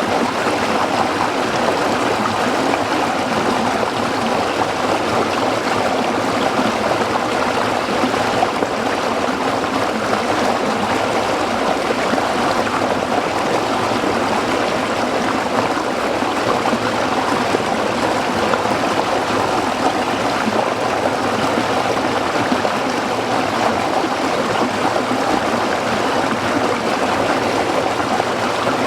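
Stream water flowing and splashing over rocks, a steady even rush with no pauses or changes.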